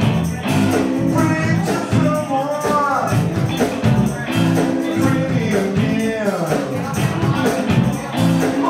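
Live band music: a man singing into a microphone over electric guitar and steady percussion with jingles like a tambourine.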